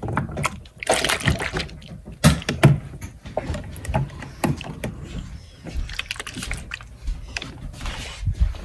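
Baby bottles being handled and lifted out of a water-filled Mosfiata triple bottle warmer: water sloshing, with irregular clacks and knocks of plastic bottles against the warmer.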